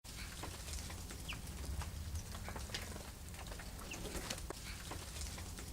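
Small birds at a feeder giving scattered short chirps and call notes, with a steady low rumble underneath.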